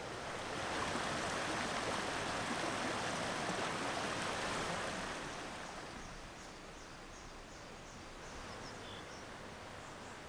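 Steady rush of river water running over rocks into a rock pool, dropping to a quieter background about five seconds in, where faint high chirps repeat.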